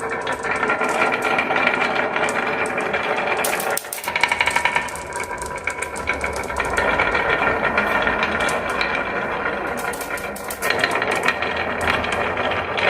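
Marbles rolling and clattering down a wooden marble run, a dense stream of small clicks and rattles with a brief lull about four seconds in.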